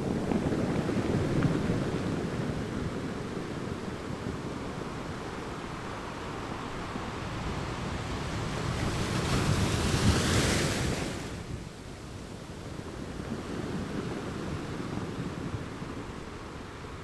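Ocean waves breaking on a beach, the wash swelling and ebbing. One wave crashes loudest with a bright hiss about nine to eleven seconds in, then the sound drops away suddenly.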